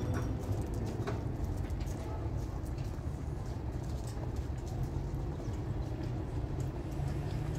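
Small wood fire crackling faintly under a cooking pot and kettle, over a steady low rumble.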